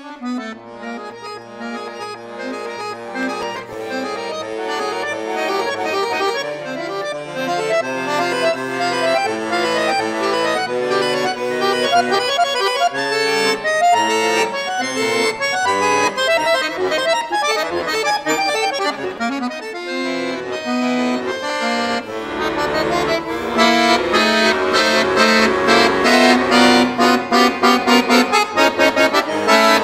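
Solo accordion playing an atonal contemporary piece: quick runs of short, dissonant notes that grow louder, then loud, rapidly repeated chords over low bass from about two-thirds of the way in.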